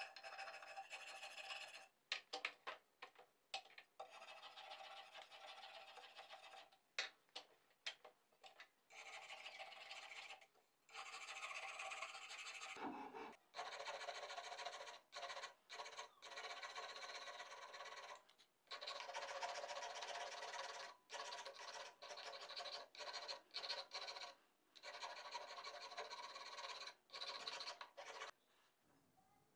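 Metal hand file rasping on the wood of a mandolin headstock's tuner slots, in repeated strokes of a second or two with short pauses between them. The strokes are shorter and quicker in the first several seconds, then longer.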